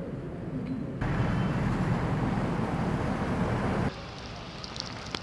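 Outdoor ambient noise, a steady rushing hiss and rumble. It jumps louder about a second in and drops back near four seconds, with a few faint ticks near the end.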